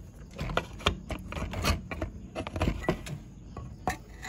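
Engine side cover of a Rusi Yuri 110 motorcycle being worked loose and pulled off its crankcase by hand: a run of irregular metal clicks and knocks.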